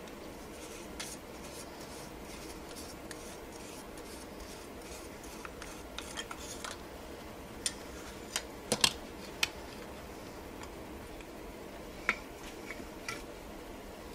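Plastic hot air gun handpiece being handled and taken apart with needle-nose pliers: faint rubbing and scraping of the plastic shell, with a few sharp clicks, the loudest bunched about eight to nine seconds in and another near twelve seconds.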